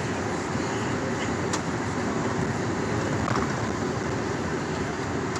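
Steady road and engine noise heard inside a pickup truck's cabin while it drives.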